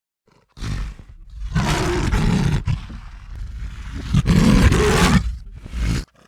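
Lion roaring: a short call, then two long loud roars with a quieter stretch between them, ending with a brief last call that cuts off sharply.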